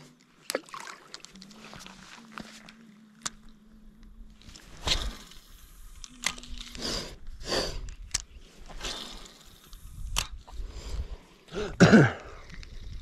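Spinning reel being worked while casting and retrieving: a faint low whir as the handle is cranked, sharp clicks, and bursts of jacket rustle against the chest-mounted camera, the loudest near the end.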